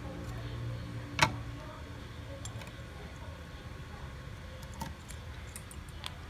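Small metal repair tools clicking and tapping against a smartphone as it is worked on. There is one sharp click about a second in and a few fainter ticks later, over a low steady hum that fades soon after the sharp click.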